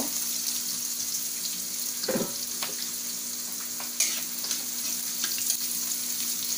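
Chopped onion sizzling as it sautés in hot oil in a steel wok. A metal spatula clicks and scrapes against the wok as it stirs, with one louder knock about four seconds in.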